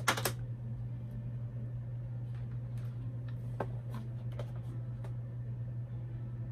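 Cardboard and plastic toy packaging being handled: a short, loud scrape or rustle at the start, then a few light taps and clicks over the next few seconds, over a steady low hum.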